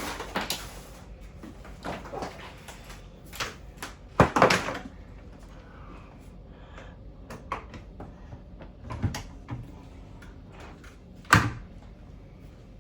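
Scattered knocks and thunks of a Fender Tremolux amp head being set back onto its piggyback cabinet and fitted into its mounting brackets, with the loudest bumps about four seconds in and again near the end.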